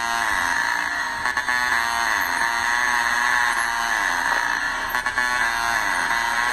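Harsh, buzzy electronic tone held without a break, its pitch dropping in short downward slides every second or so, like a buzzer or horn effect in a sound-system mix.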